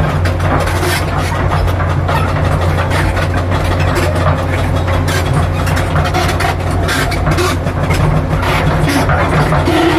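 Diesel engine of a Komatsu PC200-7 hydraulic excavator running steadily, a six-cylinder turbo diesel, with irregular mechanical clicks and knocks over the engine hum.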